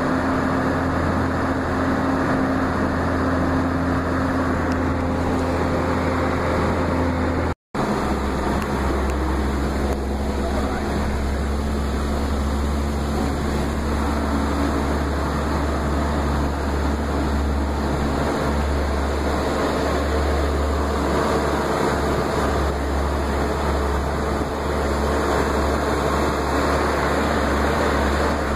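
Steady engine and road noise of a moving vehicle, heard from aboard it, with a constant low drone and a steady hum. The sound cuts out for an instant about eight seconds in.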